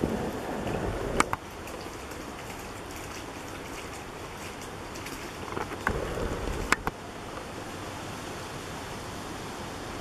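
A dog wading through boggy mud and shallow water: two bouts of splashing and squelching, one at the start and one about six seconds in, each ending in a sharp slap, over a steady background hiss.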